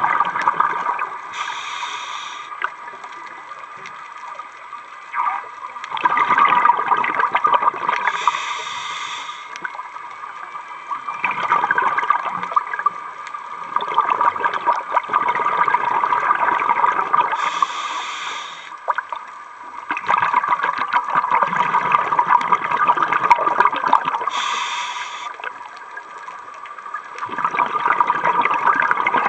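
Scuba diver breathing through a regulator underwater. There are four breaths, each a brief high hiss followed by a few seconds of bubbling exhaust, with quieter gaps between them.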